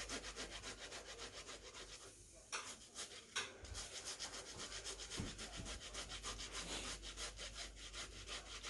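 A tomato being grated on a flat stainless-steel rasp grater: quick, even back-and-forth scraping strokes, with a brief pause about two seconds in.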